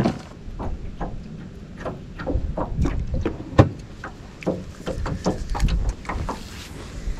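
Short clicks and knocks of gear being handled in an aluminum jon boat, with wind rumbling on the microphone.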